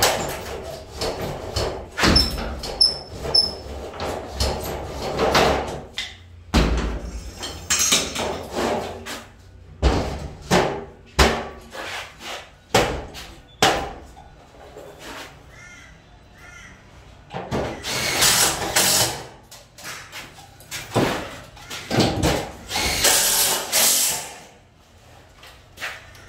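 Cement sheet being cut with long-handled hand shears, a run of sharp crunching snips and knocks. Later come further knocks and two longer rasping scrapes as sheets are handled and fitted.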